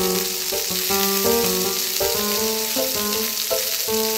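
A frying sizzle, a steady hiss like food in a hot pan, under background music with a melody of short notes.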